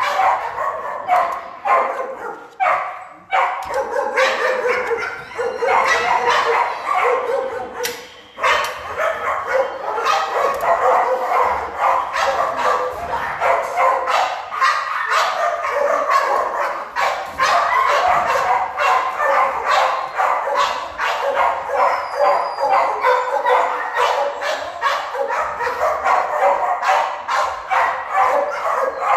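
Many shelter dogs in their kennels barking at once, a continuous din of overlapping barks and yips.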